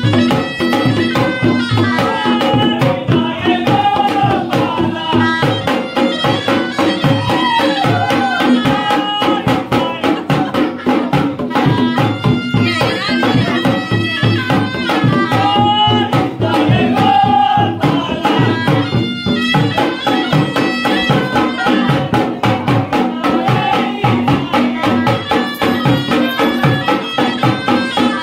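Traditional Indian folk music with fast, steady drumming and a melody line that bends in pitch.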